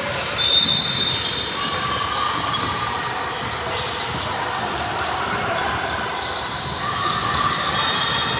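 Basketball being bounced on a gym court during a game, with voices of players and spectators throughout.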